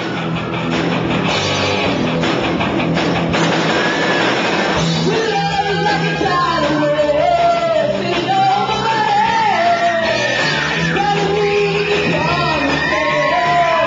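Live rock band playing: an electric guitar and a drum kit with crashing cymbals open on their own, and a woman's voice comes in singing into a microphone about five seconds in.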